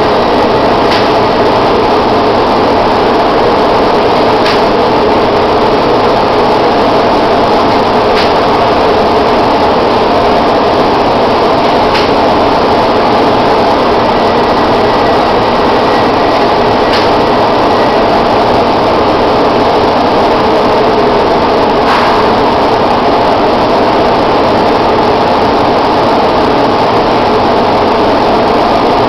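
Paint spraying equipment running steadily, a constant loud motor hum with a rush of air, with a faint tick every few seconds.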